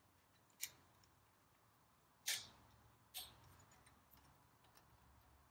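Three small, sharp clicks of metal parts being handled as the friction disc and lever on a Ferguson TED20's hydraulic control quadrant shaft are worked by hand. The middle click is the loudest.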